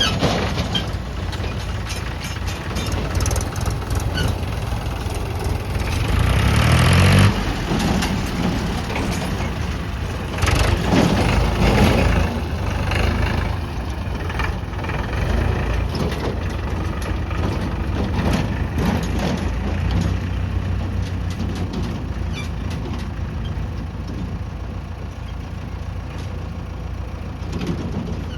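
Heavy diesel machinery engine running, revving up with a rising pitch about six seconds in and again louder around eleven seconds in, then settling back.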